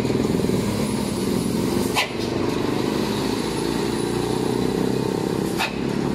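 A large truck's engine running steadily as the truck drives slowly past close by, with two short sharp clicks, about two seconds in and near the end.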